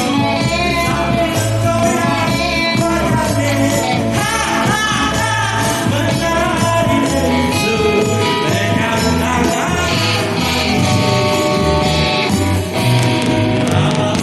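Live band playing a nostalgic Indonesian pop song (tembang kenangan), with guitar over a steady bass line and beat.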